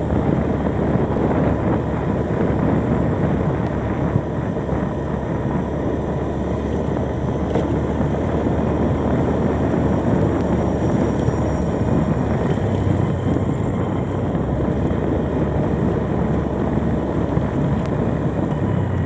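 Motorcycle engine running steadily while being ridden, mixed with wind rushing over the microphone.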